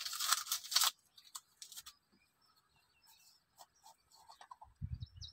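Hands handling a small tin of car touch-up paint: a brief rustling scrape at the start, then scattered faint clicks and a few low bumps near the end.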